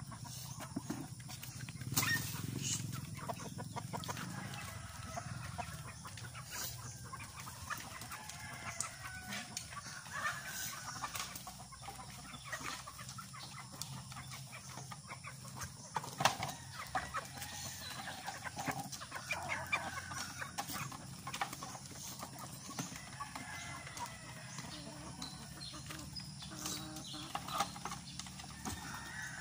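A flock of free-range native chickens clucking and calling, with scattered short knocks.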